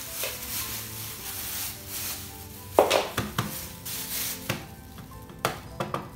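Clear plastic bag crinkling as it is pulled off an air fryer's power cord and crumpled by hand, broken by several sharp knocks, the loudest about three seconds in, as the cord and plug are handled. Faint background music plays under it.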